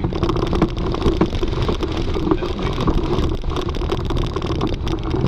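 Off-road 4x4 driving slowly over a rough, potholed dirt track, heard from inside the cab: a steady engine drone with frequent knocks and rattles as the body jolts over the bumps.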